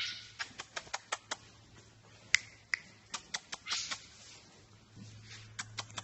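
An irregular run of short, sharp clicks, several a second at times, over a faint steady low hum.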